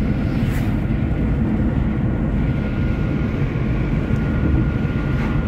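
Steady road and engine noise of a car driving at highway speed, heard from inside the cabin, with a thin steady high whine running through it.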